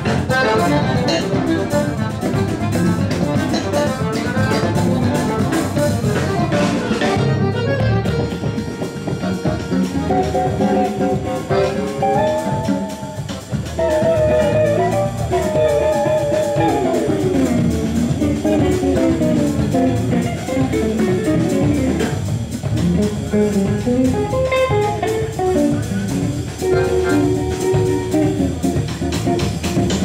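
Live instrumental Brazilian jazz from a band of guitar, bass guitar and drum kit with accordion. A lead line plays quick runs of notes that rise and fall through the middle.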